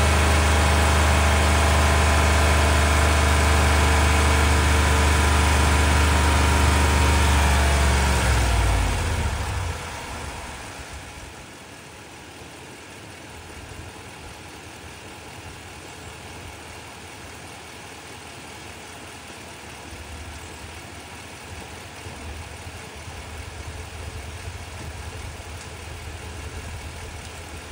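Ford 7.3 L gasoline V8 held at high revs, then let go about eight seconds in: the pitch falls quickly and it settles into a much quieter, steady warm idle.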